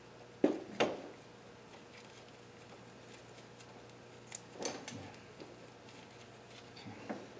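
Loose steel bolts clinking and clattering as they are picked through by hand: a couple of sharp clacks about half a second in, another cluster about four and a half seconds in, and one more near the end.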